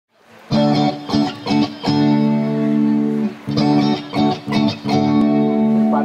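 Amplified electric guitar playing the opening chords of a live band song, starting about half a second in: short stabbed chords alternating with held chords.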